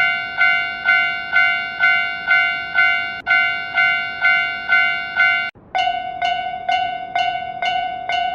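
Japanese railroad crossing warning bell ringing in a steady alternating clang, about two strikes a second. About five and a half seconds in it cuts to a different crossing bell of the same pitch and rate, with a slightly wavering tone.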